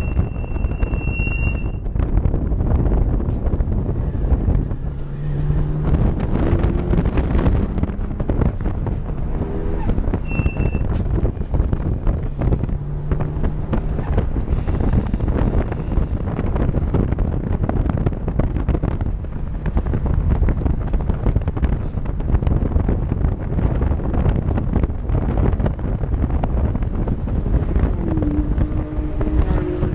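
Subaru WRX wagon's EJ207 turbocharged flat-four driven hard on track, heard onboard. The engine note climbs, breaks off at shifts and climbs again, under loud, steady wind and road noise with frequent crackles.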